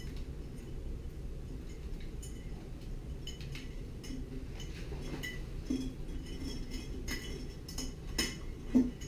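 Steel wires of a broomed-out wire rope end clinking against a glass container. It is a run of light, irregular clinks that grows busier after a few seconds, with the two loudest near the end.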